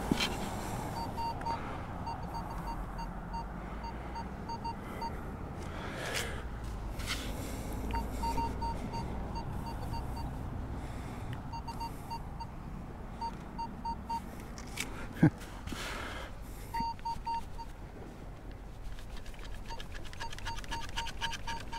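Minelab Vanquish metal detector giving runs of short, evenly spaced beeps as its coil is swept over targets in the sand, with a low steady rumble underneath. A single sharp click comes about fifteen seconds in.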